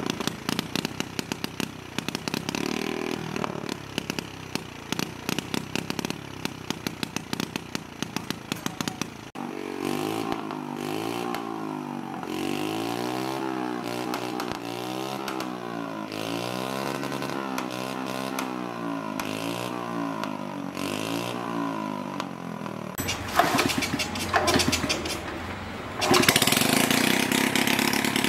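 Honda Chaly's small single-cylinder four-stroke engine running, first at a fast steady idle, then revved up and let back down again and again, each rev a rising and falling note. Near the end it runs louder and rougher.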